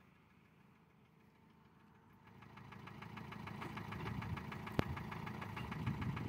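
An engine running with a fast, even ticking beat, fading in and growing louder from about two seconds in, with one sharp click near the end.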